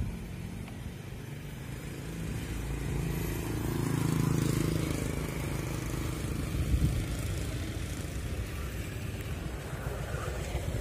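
A road vehicle passing, swelling to its loudest about four seconds in and then fading, over a low steady rumble.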